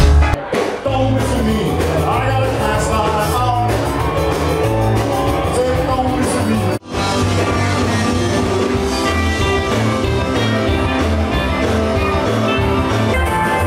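Rock-and-roll music with singing. It cuts out for an instant about seven seconds in, then carries on.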